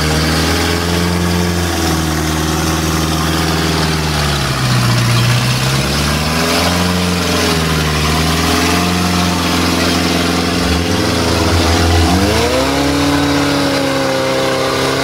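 Lada Niva's engine revving up and down under load as it claws out of a muddy water pit, the revs dropping and picking up again several times and climbing sharply about twelve seconds in.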